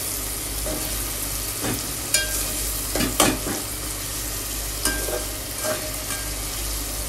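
Onion-tomato masala sizzling in hot oil in a pot while a spatula stirs it, with several short scrapes against the pot. This is the bhuna stage, the spices being fried through before water goes in.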